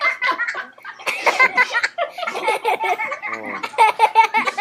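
Young women laughing hard in repeated bursts, stifled by the water held in their mouths.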